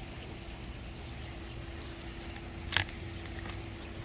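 Outdoor background noise: a steady low rumble under a faint steady hum, with one sharp click about three-quarters of the way through.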